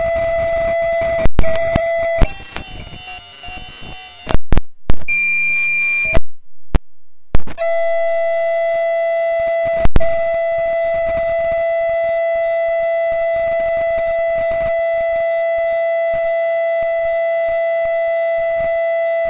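Loud audio feedback: a steady whine held on one pitch with overtones. It is broken by several loud pops and a short drop-out about six to seven seconds in, then holds steady.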